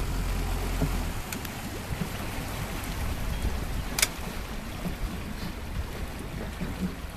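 Motorboat engine running at low speed with water noise; its low rumble drops away about a second in. A single sharp click about four seconds in.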